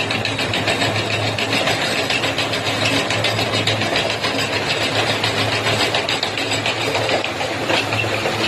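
A motor running steadily, with a constant hum and a fast, even rattle.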